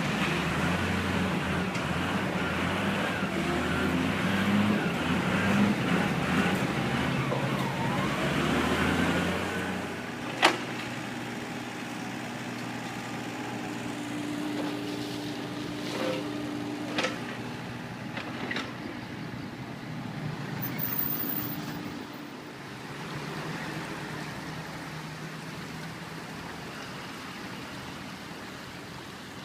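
A large motor vehicle engine running close by for about the first ten seconds, then fading to a quieter traffic background. A sharp knock comes about ten seconds in, and a few more follow later.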